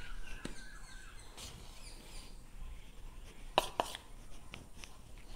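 Faint handling sounds as a plastic bowl is tipped to empty flour into a steel mixing bowl, with a few light knocks of bowl against bowl. The sharpest knock comes about three and a half seconds in.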